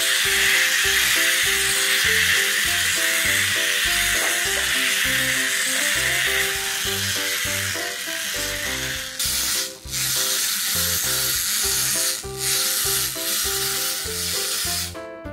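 Light instrumental background music with a regular bass beat. Under it runs a steady buzzing whir from the clockwork motors of small wind-up toy trucks. The whir dips briefly a few times in the second half.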